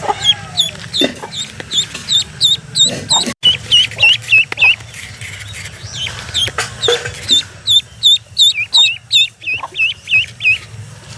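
A duckling peeping in quick runs of short, high chirps, several a second, with short pauses between the runs.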